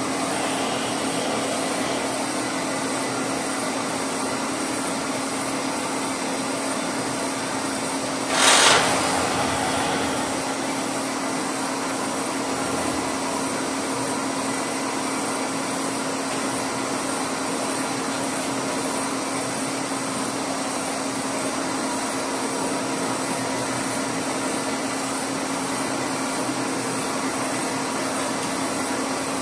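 Horizontal boring mill running steadily with a drill in its spindle against a Caterpillar 950 Z-link: a constant machine hum with one steady tone. A short, loud burst of noise comes about eight and a half seconds in.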